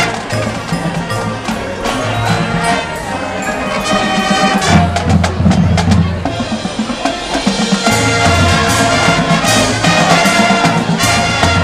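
High school marching band playing, with drums and percussion strokes to the fore over held low notes; the music grows a little louder about four seconds in.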